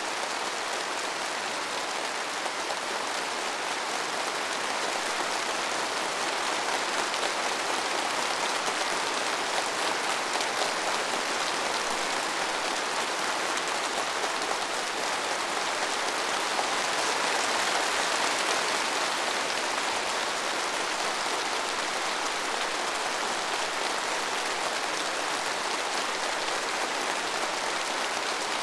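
Dense, sustained applause from a large crowd of delegates clapping together, swelling a little past the middle.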